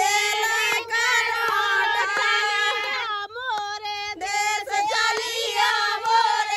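Women singing a Bundeli wedding folk song in high, long-held notes, with a short break a little past the middle.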